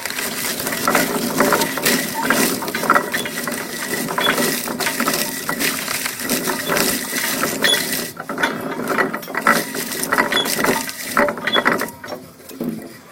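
Stainless steel fruit crusher's pin rotor smashing apples: a dense, continuous clatter and crunch of fruit being struck and thrown against the steel hopper. It dies down near the end as the hopper empties.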